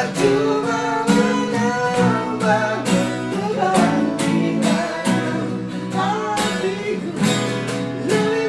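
Acoustic guitars strummed in a steady rhythm, playing chords of a song.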